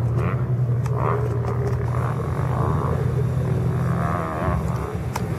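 Pickup truck's engine running at speed across a dirt track, a steady low drone that eases off about four seconds in.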